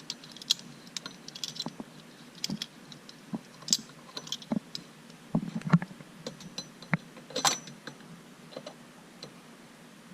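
Scattered light clicks and metallic clinks of small hardware and hand tools being handled while fitting a quick-release steering wheel hub, with a few louder knocks about halfway through.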